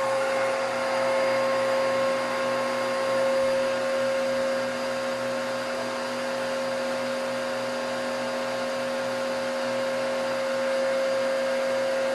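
Vacuum cleaner running steadily, a constant motor whine over a rushing noise.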